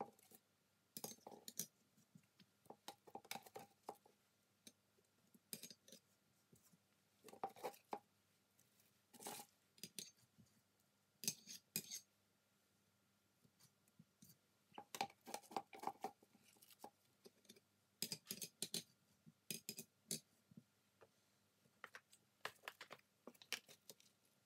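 Intermittent metallic clinks and taps of steel lathe-chuck parts being handled and fitted back into a three-jaw self-centering chuck body during reassembly, in irregular clusters with short quiet gaps.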